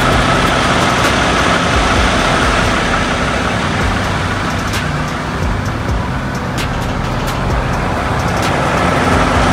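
Steady diesel truck engine running with the noise of passing truck traffic, a constant low hum under a faint steady high whine.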